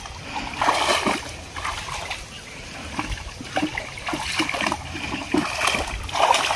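Shallow pond water splashing and sloshing as people wade through it and grope in it by hand for fish, in irregular splashes, loudest about a second in and near the end.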